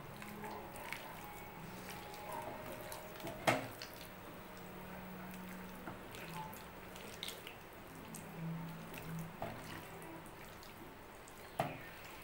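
A hand squeezing and kneading raw chicken pieces in a wet egg, cornflour and chilli-powder marinade on a stainless steel plate: faint wet squelching and dripping. Two sharper knocks come through, one about three and a half seconds in and one near the end.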